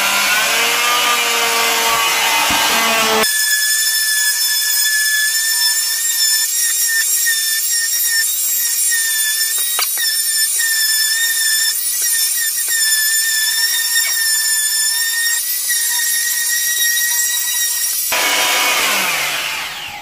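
Harbor Freight variable-speed oscillating multi-tool with a triangle sanding pad running at high speed while it sands thick paint runs off painted wood trim. It makes a steady high-pitched whine, its pitch climbing at first as the speed is turned up. Near the end it is switched off and winds down.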